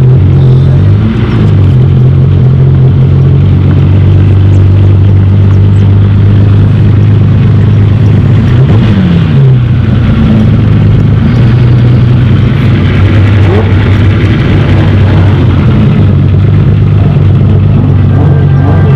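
Ferrari F50's V12 with a Tubi exhaust idling steadily and very loud, with one short rev about nine seconds in.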